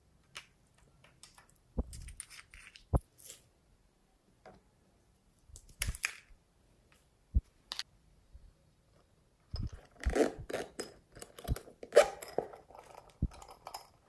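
Hands handling plastic toys beside a glass dish of slime: scattered sharp clicks and knocks, then a busier run of handling noise from about ten seconds in.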